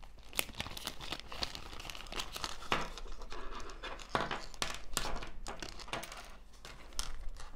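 Clear plastic packaging bag crinkling in the hands as a diamond painting tool kit is pulled out of it, with many short sharp crackles.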